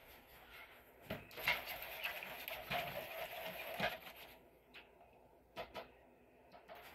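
Faint, scattered light clicks and knocks of a utensil against a plastic pouring cup while melted soap is stirred and its temperature checked, with a soft scraping in the middle.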